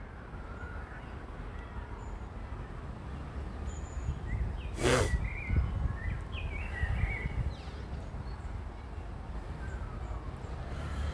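Small birds chirping in short scattered calls over a steady low rumble, with one short harsh noise about five seconds in.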